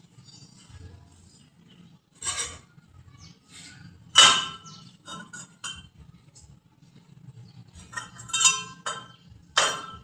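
Metal parts clinking and knocking together: several sharp strikes with brief ringing, the loudest about four seconds in, with smaller taps between.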